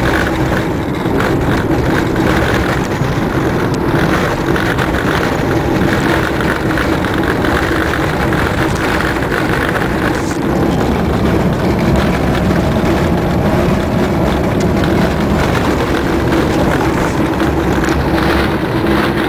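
Car driving on a dirt road, heard from inside the cabin: a steady mix of engine and road noise.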